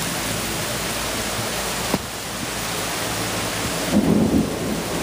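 Steady hiss of rain, with a single click about two seconds in and a brief low rumble about four seconds in.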